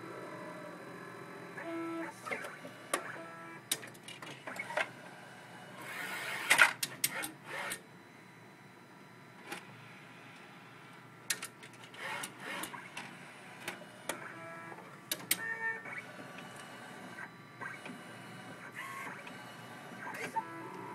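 Rimage robotic CD duplicator running: its disc-transport arm and drive trays moving, with short motor whirs at changing pitches broken by clicks and clunks, busiest about six to eight seconds in.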